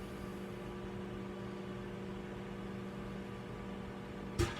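Microwave oven running with a steady hum while heating popcorn kernels in a covered plastic microwave rice maker; a single kernel pops sharply near the end.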